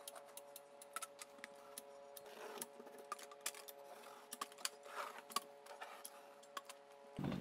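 Faint, irregular clicks from a hand caulking gun's trigger and plunger as construction adhesive is squeezed into the seams of a plywood subfloor, over a faint steady hum.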